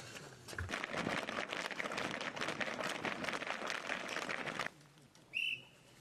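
A dense, irregular clatter of many sharp sounds from a large group of people, which cuts off abruptly near the end. A brief high chirp-like tone follows.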